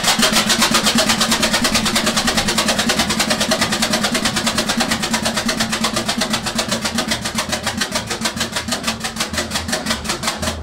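Crossley E6 two-stroke diesel engine turning over with a fast, even beat of about seven pulses a second, gradually getting quieter, then cutting off at the end.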